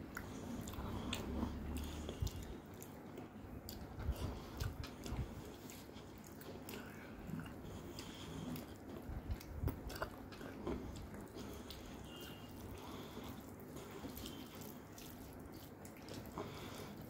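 Close-miked eating by hand: chewing and biting, with the soft squish and clicks of fingers mixing rice and curry on a metal plate.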